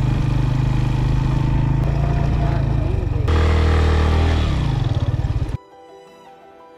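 Motorcycle engine running as it is ridden along a sandy dirt track. A little past halfway the note drops lower and falls away as the bike slows, then cuts off suddenly and soft music takes over near the end.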